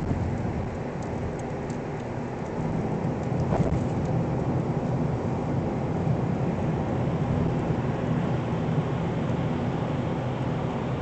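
Steady road and engine noise heard inside the cabin of a car driving at highway speed. The rush grows a little louder about two and a half seconds in.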